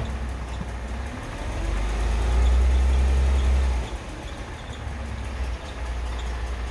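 Mercedes-Benz M272 V6 engine running, getting louder for about two seconds from about a second and a half in, then dropping back to a steady idle. This is the range where the owner hears a tap and a light squeak between 700 and 1500 rpm.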